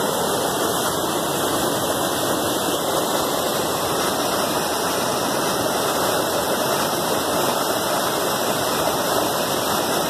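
Steady rush of water from a waterfall and a stream running over rocks.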